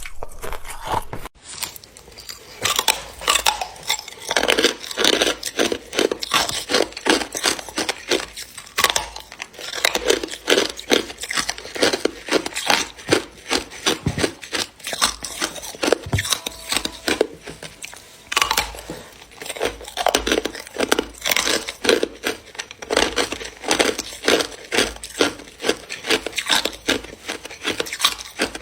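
Close-miked crunching of hard clear ice being bitten and chewed, a dense run of sharp cracks and crackles with short pauses.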